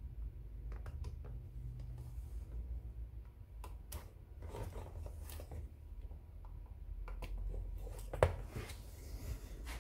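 Small clicks and scrapes of a soldering iron tip and a TV power-supply circuit board being worked and shifted on the bench, over a steady low hum, with one sharper knock about eight seconds in.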